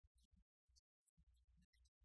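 Near silence, with only a faint, broken low hum.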